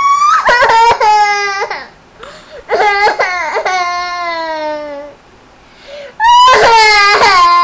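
A five-year-old girl crying on cue: three long wails about three seconds apart, each starting high with sobbing catches and sliding down in pitch.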